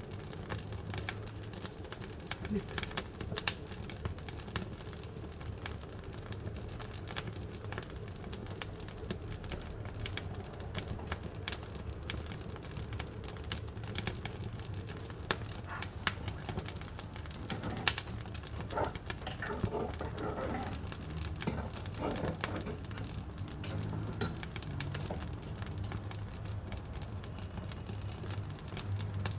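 Wood fire crackling in a wood-burning stove, with irregular sharp pops and snaps over a steady low hum.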